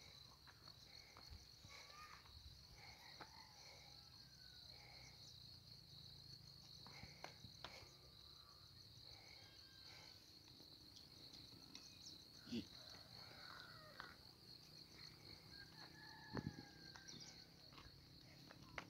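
Faint, steady high-pitched chirring of insects, with scattered short calls and two or three brief knocks.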